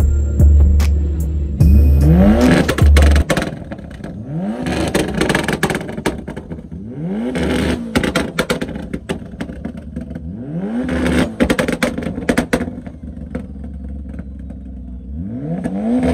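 Music with a heavy bass beat that stops about three seconds in. Then an engine revs up and drops back again and again, about every three seconds, with clattering and clicks.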